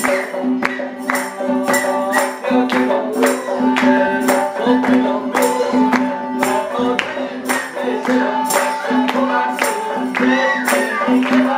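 Persian traditional ensemble playing: frame drums (dayereh) with metal jingles keep a steady beat, over a long-necked plucked lute and a kamancheh carrying the tune.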